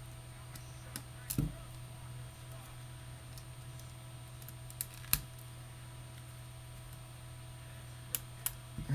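A few scattered small clicks and taps of a Phillips screwdriver and tiny screws being backed out of a smartphone's rear housing, over a steady electrical hum.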